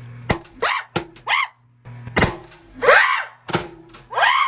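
Balloons bursting on spikes inside a coin pusher machine: several sudden sharp bangs, the middle one the loudest. Short excited rising shrieks follow the bangs.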